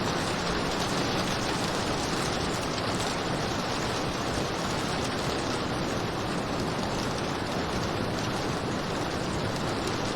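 Steady rain falling, an even continuous hiss with no distinct drops or thunder.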